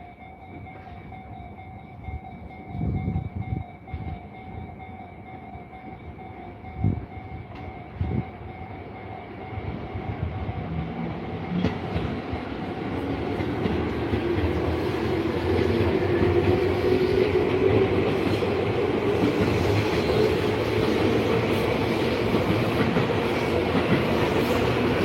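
Tobu Tojo Line electric train passing through a level crossing: its wheels clatter on the rails, growing louder from about ten seconds in, and its motors whine, rising in pitch as it picks up speed. In the first ten seconds the crossing's warning signal rings as a steady tone, with a few dull knocks.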